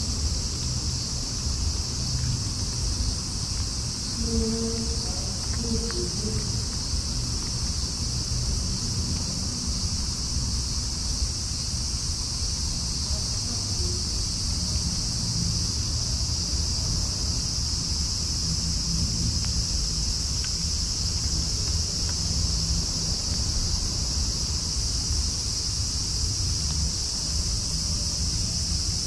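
Night insects chirring in a steady, unbroken high-pitched chorus, over a constant low rumble.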